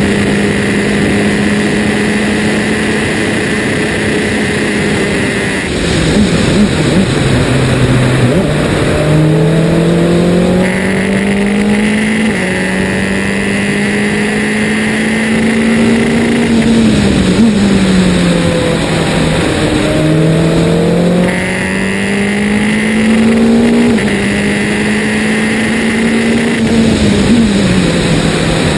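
Formula Renault 2.0 single-seater's four-cylinder engine at full song, heard from the onboard camera behind the driver: revs held steady on a straight, then falling in steps with downshifts into a corner about six seconds in, and climbing again through a series of quick upshifts. The braking-downshift and upshift pattern repeats several times over a constant rush of wind and tyre noise.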